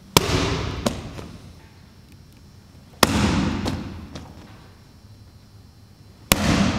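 A prop severed head thrown down from an upper floor lands with a sharp impact three times, about three seconds apart, each echoing through the large mill interior. A few lighter knocks follow each impact.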